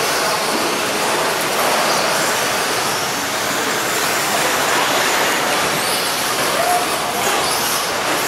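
Electric 2WD short course RC trucks racing on a dirt track: a steady wash of motor whine and tyre noise, with a few higher whines rising and falling as trucks speed up and pass.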